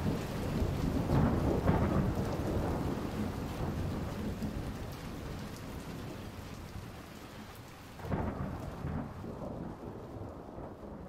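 Deep rumbling noise with a hiss of rain-like noise, swelling about a second and a half in and again about eight seconds in, then slowly fading.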